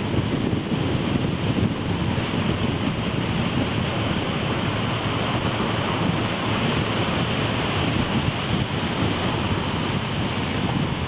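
Steady rushing wind on the microphone and road noise of a vehicle driving along a winding mountain road, with a faint steady high whine above it.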